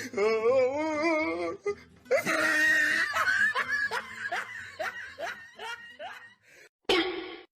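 A person laughing: a long wavering cry, then a run of short falling "ha"s, about two or three a second, that fade away. A brief burst of noise comes near the end.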